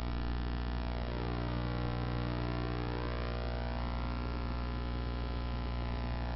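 Steady electrical hum and buzz, mains hum with a ladder of overtones, with no game sound heard through it. Faint higher tones slide down and back up about a second in, and again near the end.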